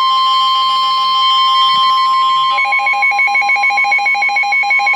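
Weatheradio Canada's steady 1050 Hz warning alarm tone sounding ahead of a severe thunderstorm warning. About two and a half seconds in, a second, rapidly pulsing electronic alert beep joins it.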